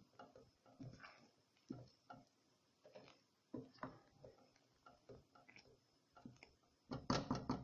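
Faint, irregular pops and taps from a small pot of medlar jam cooking on the stove. A louder cluster of knocks comes near the end.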